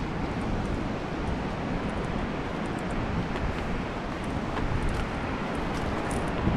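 Steady rushing of the Linville River's flowing water, an even wash of noise with no distinct events.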